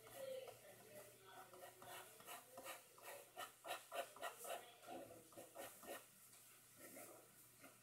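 Faint scratching of a fine-tipped ink pen on paper, in many quick short strokes that come thickest from about two to six seconds in.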